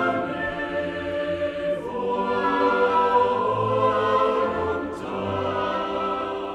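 A choir singing slow, held chords, with the chord changing about two seconds in and again near five seconds.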